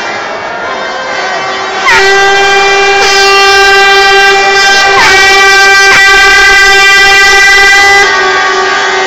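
Several horns blaring with long held notes. More horns join about two seconds in, making it louder and fuller, with a few short upward scoops in pitch, and it eases back near the end.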